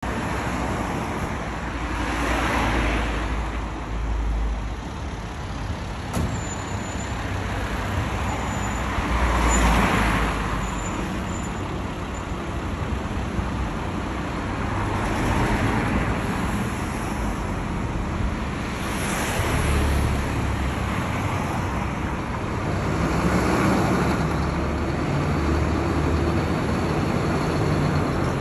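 Road traffic passing, about five vehicles swelling and fading one after another. In the last few seconds a Scania fire engine's diesel engine grows louder as it pulls out of its bay.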